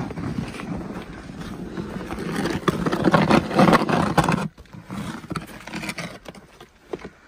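Snow crunching and scraping close to the microphone, loudest in a dense stretch near the middle, then dropping off sharply about four and a half seconds in to a few scattered crunches.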